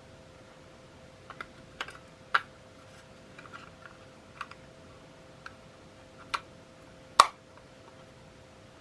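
Computer mouse buttons clicking: about a dozen short clicks at irregular intervals, the loudest one near the end, over a faint steady hum.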